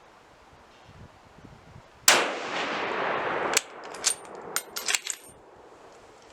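A single shot from a MAS 36 bolt-action rifle in 7.5 French, a sharp crack about two seconds in with a tail that dies away over about a second and a half. It is followed by a quick run of metallic clacks with a ringing ping as the bolt is worked and the spent brass case is ejected.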